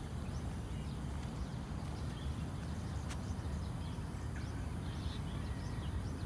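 Outdoor ambience: scattered short bird chirps over a steady low rumble, with one sharp click about three seconds in.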